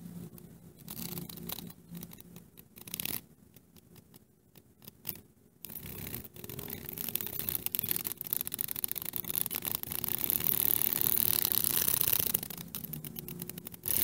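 A cicada held between fingers buzzing. The harsh buzz starts about six seconds in and grows louder, then breaks into rapid stutters near the end. Before it come a few scratchy clicks from handling.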